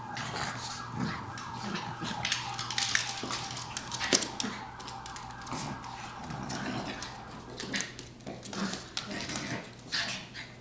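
A pug and a Chihuahua play-wrestling, making a run of short growls, snorts and whines, with paws and bodies scuffling on the dog bed.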